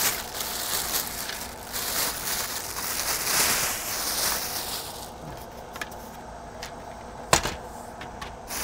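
Plastic wrapping crinkling and rustling as a telescope tripod is pulled out of its bag, dying down about five seconds in. A few light clicks follow, then one sharp knock near the end as the metal tripod is stood on the wooden deck.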